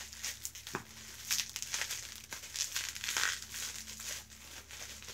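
Plastic bubble wrap crinkling and crackling irregularly as hands unwrap a small perfume bottle.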